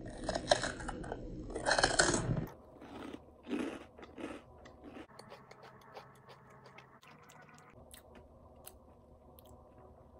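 A person crunching and chewing a puffed chickpea snack (a Hippeas chickpea puff) close to the microphone: loud crunching for the first two and a half seconds, another short crunch about a second later, then softer chewing that fades.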